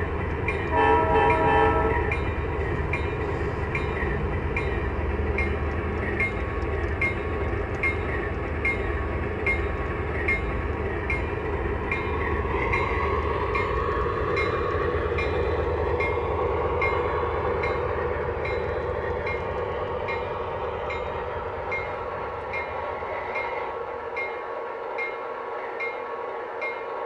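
MTH Proto-Sound 3 sound system of an O-gauge Alco RS-11 model diesel locomotive: a short horn blast about a second in, then the diesel engine sound running as the model pulls away, with a regular ticking. The low rumble drops away near the end.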